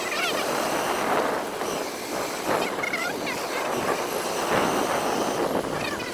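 Steady rushing roar of water pouring over a waterfall, with a few short high chirps over it.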